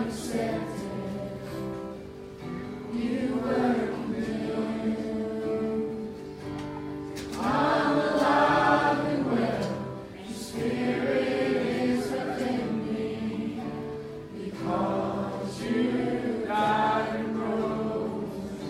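A group of voices singing a gospel song in phrases of a few seconds each, over steady held chords.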